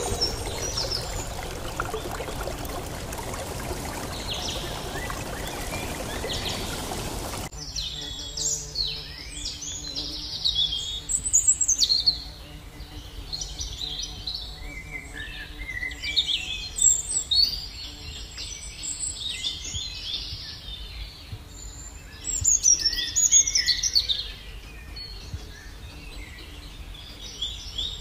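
A steady hiss for the first seven seconds or so, then an abrupt change to many birds chirping with short, high calls over a faint low hum.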